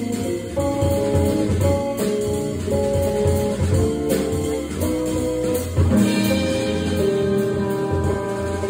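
Live jazz trio playing: electric guitar, organ and drum kit.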